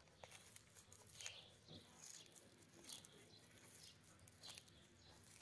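Faint crunching and tearing of a tortoise biting into and chewing a fresh green leaf and stem, a few short crisp bites about a second apart.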